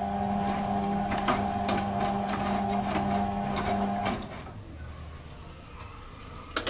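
Hotpoint WM31 washing machine's drum motor turning the drum with a steady whine, wet laundry splashing and dropping as it tumbles in the heated main wash; the motor stops about four seconds in. A sharp click near the end.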